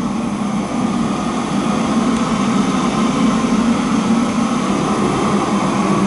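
Steady, loud mechanical roar with a low hum: the running noise of a commercial kitchen's stove burner and wall exhaust fan.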